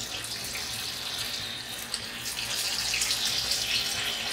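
Marinated, cornflour-coated chicken pieces sizzling and crackling in hot oil in a steel kadai. It grows louder about halfway through as more pieces go in.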